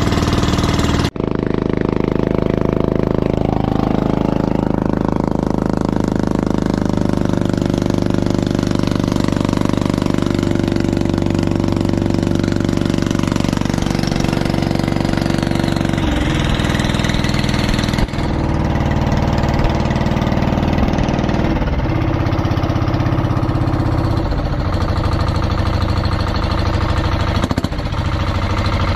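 Engine of a motorized outrigger boat (bangka) running steadily under way. It is briefly cut off about a second in and again around the middle, and its note drops lower for the second half.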